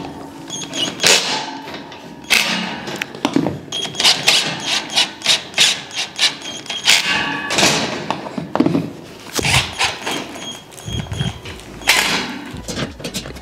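Steel futon frame tubing being screwed together with a cordless drill/driver: a run of metal knocks and clanks with short bursts of the drill driving screws.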